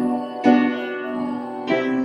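Upright piano played in slow chords: two chords struck about a second and a quarter apart, each ringing on and fading.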